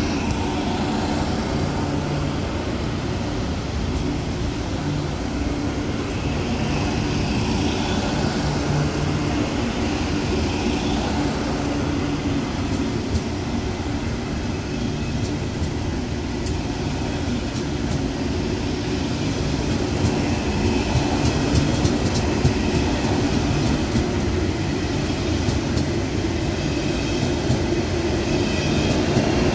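KTX high-speed train moving through the station: a steady rail rumble with a low hum from the running gear and a few faint wheel clicks, growing louder near the end.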